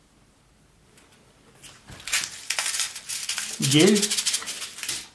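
Packaging being handled: a dense run of crinkling and clicking, close to the microphone, starting about a second and a half in and stopping just before the end, with a short low sound sliding up and down about two-thirds of the way through.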